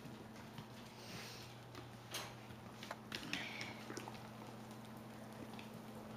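Faint scuffling of five-week-old Klee Kai/Shiba Inu puppies playing together on carpet: scattered light taps and rustles over a steady low hum.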